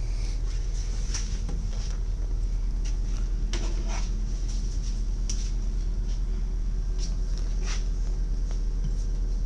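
Steady low drone of a LINT diesel railcar heard from inside the carriage, with a few scattered clicks and knocks.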